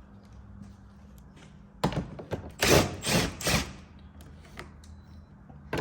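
A thunk about two seconds in, then a few short rattling scrapes of handled plastic door-trim parts, over a low steady hum.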